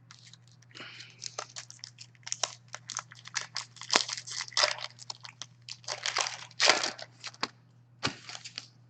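Foil wrapper of a hockey card pack crinkling and tearing as it is opened and handled, in dense irregular crackles, over a steady low hum.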